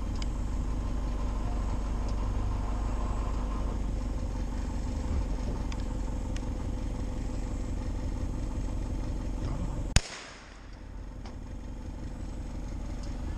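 A motor vehicle's engine running steadily. About ten seconds in, a single loud gunshot cracks out at game, and the background dips for a moment afterwards.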